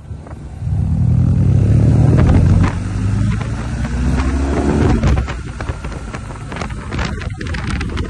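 Motorcycle engine accelerating hard from the rider's seat. The revs climb, drop at a gear change about two and a half seconds in, then climb and drop again around five seconds in. Wind rushes over the microphone throughout.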